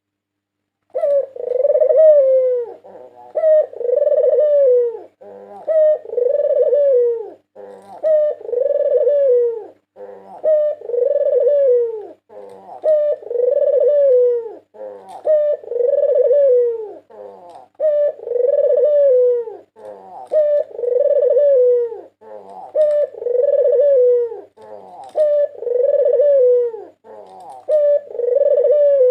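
White puter dove (white ringneck dove) cooing over and over, one coo phrase roughly every two seconds, starting about a second in.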